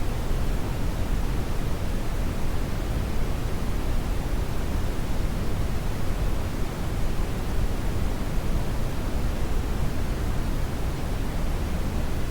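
Brown noise: a steady, unchanging rumble-like hiss with its energy weighted heavily toward the low end.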